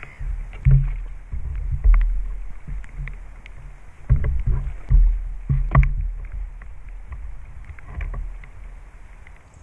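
Handling noise from fishing tackle at close range, a landing net and pole sections being moved about on the seatbox: irregular low rumbling thumps with a few sharp knocks, heaviest about two seconds in and again between four and six seconds.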